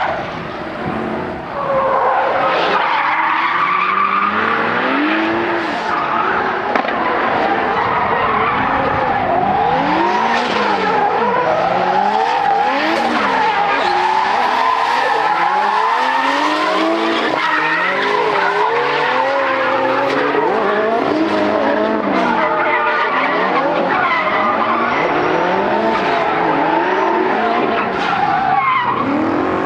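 Drift cars sliding with tyres screeching, engines revving up and down again and again, with several pitch sweeps overlapping at once. The sound dips briefly about a second in.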